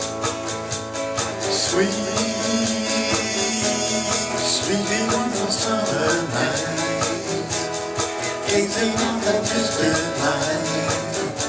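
Live band music: a guitar playing over a steady beat from an electronic drum kit, about four hits a second, with no lead vocal.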